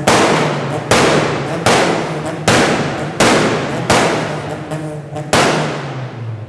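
Honda Civic estate's exhaust cracking with a regular run of sharp bangs, about one every three-quarters of a second, over the steady running of the engine. Each bang echoes and dies away before the next.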